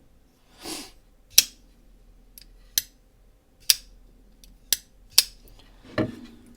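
Flipper folding knife being flicked open and shut: a soft rub, then six sharp metallic clicks about a second apart as the blade snaps out and locks and is closed again.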